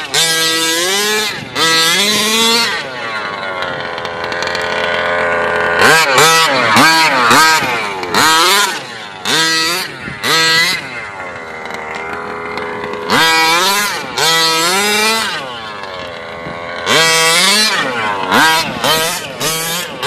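HPI Baja 5SC RC truck's full-mod 30.5cc two-stroke gas engine revving up and dropping back over and over as it is driven, twice settling into a longer, steadier note between bursts of throttle.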